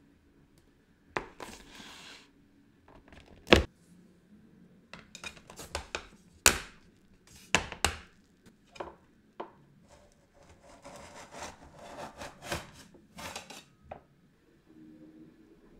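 Kitchenware being handled: a series of sharp knocks and taps as hard items are set down, with scraping and rubbing between them. The longest scrape comes about two thirds of the way in, as a square metal cake frame on its board is slid onto a plate.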